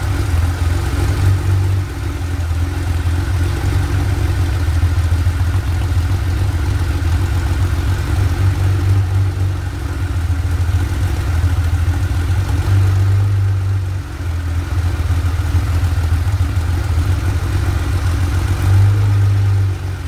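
Porsche 911 3.6 flat-six engine on a test stand running steadily through a short open exhaust pipe, with a strong, even low note that swells slightly now and then.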